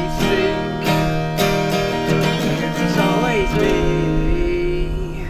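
Acoustic guitar strummed in a steady rhythm, with a man singing over it and holding one long note in the second half.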